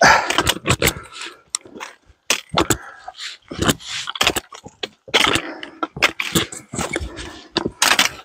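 Trekking-pole tips and hiking boots clicking, knocking and scraping on bare rock as a hiker climbs a steep rock slope, in irregular sharp taps, loudest at the start when the hiker is right beside the microphone.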